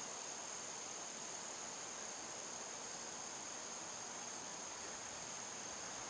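Steady chorus of insects in the trees: one unbroken high-pitched drone that does not change.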